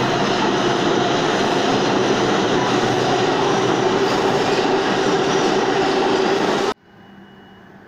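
New York City subway train running past on a far track, a loud steady rumble of wheels on rail with some clickety-clack. It cuts off abruptly near the end, leaving only a faint hum.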